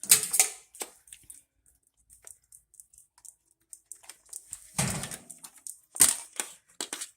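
Handling noise from a refrigerator repair: scattered clicks and rustles of multimeter test leads and small parts being picked up and set down, with a louder clatter at the start, another about five seconds in, and sharp clicks near six and seven seconds.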